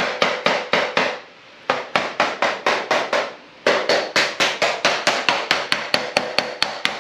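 Rapid hammer blows on a metal garage door fitting, about four or five a second, in three runs with two short pauses, each blow leaving a brief metallic ring.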